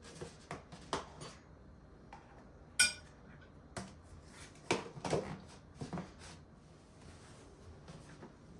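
Kitchen clatter of dishes and cutlery: a string of light knocks and clicks, with one sharp, ringing clink about three seconds in.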